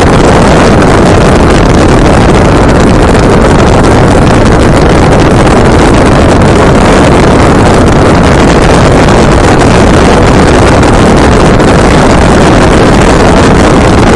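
Loud, steady wind rush buffeting the microphone of a camera mounted outside a Land Rover Discovery 2 as it drives along a paved road, with the vehicle's running noise buried in it.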